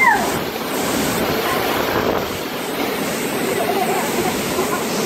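Hurricane-force wind rushing through tall pine trees, with heavy rain: a steady, loud roar.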